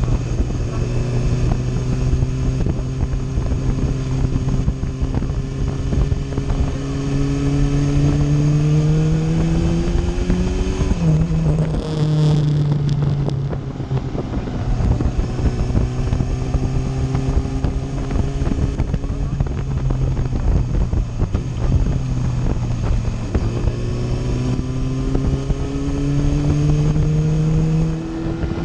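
Sport motorcycle's engine running under way, the revs climbing slowly and dropping back a few times, with wind noise on the microphone.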